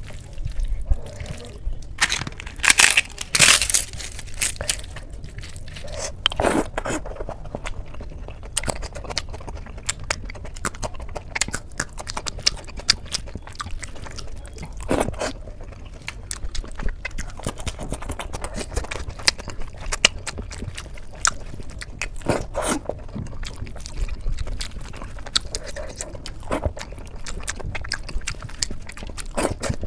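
Close-miked eating: fingers mixing rice with dal in a steel plate, and chewing of the mouthfuls. Sharp clicks come every few seconds, the loudest about three seconds in.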